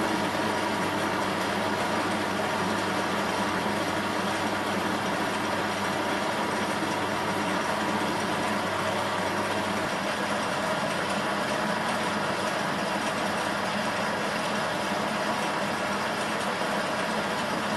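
Small bench metal lathe running steadily, its motor and gear train humming while a carbide insert takes a turning pass along a forged-steel shaft. A low hum in the mix drops out about ten seconds in.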